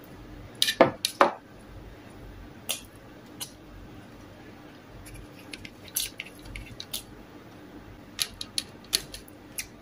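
A ceramic bowl set down on a table with two sharp knocks about a second in, then scattered light clicks and crackles as fingers pick bacon pieces off a metal tray.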